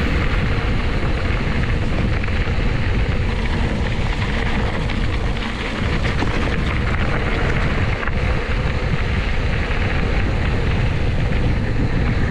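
Wind rushing over the microphone, with a steady low rumble from a mountain bike rolling over a dirt trail.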